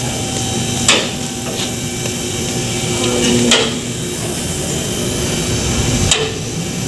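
Tools knocking on a car's rear brake caliper as it is being refitted: a few sharp knocks a second or more apart over a steady workshop hum.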